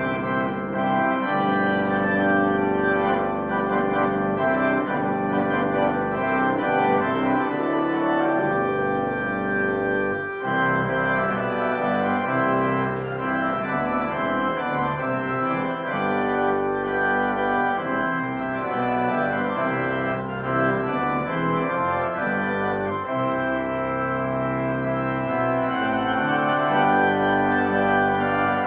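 Church organ playing the closing voluntary, sustained full chords moving from one to the next.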